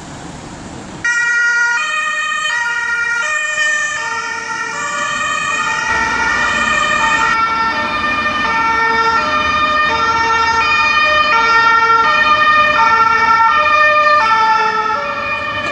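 German two-tone emergency siren (Martinshorn) on an ambulance, alternating between a high and a low tone in a steady back-and-forth. It comes in suddenly about a second in over faint street traffic noise.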